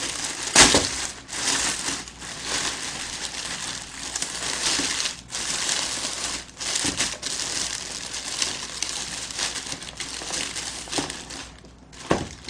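Thin plastic carrier bag rustling and crinkling as it is untied and opened by hand, with a sharp knock about half a second in.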